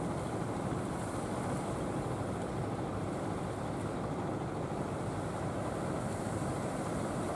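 Steady drone of a wooden fishing boat's engine running under way, mixed with the wash of surf and wind on the microphone.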